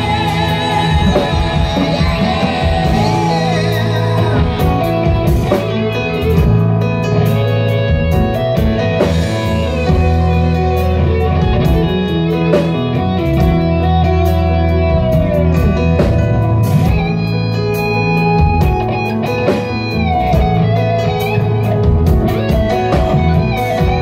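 Rock band playing live: electric guitar, bass guitar and drums.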